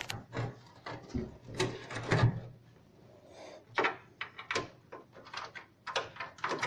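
Scattered clicks and knocks of a PC power-supply cable being threaded through a computer case, its connector and sheathing tapping and scraping against the case panels.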